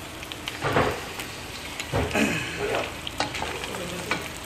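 Chicken, onion, garlic and pasta sizzling as they sauté in a nonstick frying pan, stirred with a wooden spatula, with many short clicks of the spatula against the pan.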